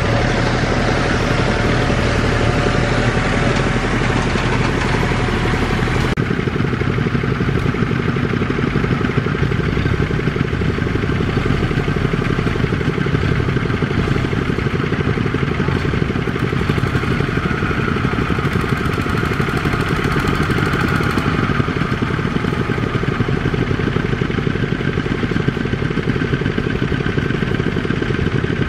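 Single-cylinder diesel engine of a two-wheel walking tractor running steadily under load as it hauls a trailer of rice sacks through sticky mud, its sound changing slightly about six seconds in.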